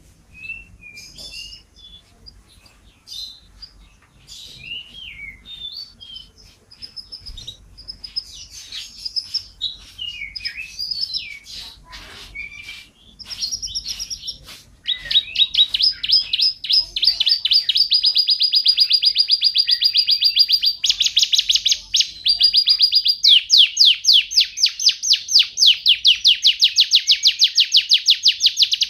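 Domestic canary singing: scattered varied chirps and warbles at first, then about halfway through a loud, unbroken run of rapid trills, one fast rolling phrase after another.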